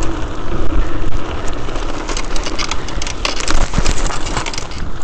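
Mountain bike rolling fast down a rocky dirt track, its tyres crunching over loose stones and the bike rattling, thickest about two to four seconds in, under a steady rumble of wind on the microphone.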